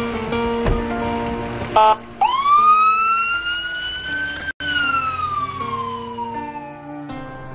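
Ambulance siren sounding one long wail: a short blip, then a tone rising for about two seconds and falling slowly away, over soft background music.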